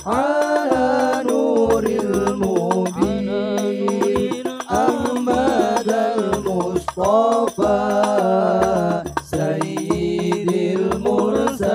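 Male voices singing an Arabic sholawat chorus to the Prophet in unison through microphones, accompanied by a hadrah ensemble of rebana frame drums beating a steady rhythm with a recurring low bass stroke.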